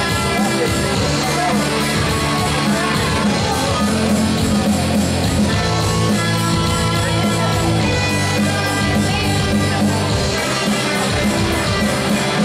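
Electric guitar and band playing rock music live on stage, with a steady beat underneath.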